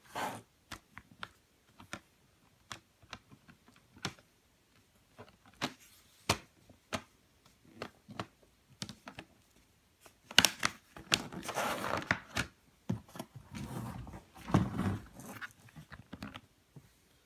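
Sharp plastic clicks and taps of a Samsung tablet being handled and reassembled, then, about ten seconds in, several seconds of louder rustling and scraping.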